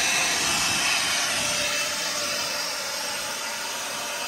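Two handheld leaf blowers running steadily, blowing water off a truck's chrome and paint: a steady rush of air with a faint motor whine, easing off slightly toward the end.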